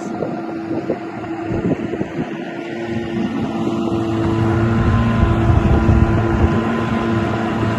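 Boat engine running steadily, growing louder about three seconds in, with wind buffeting the microphone.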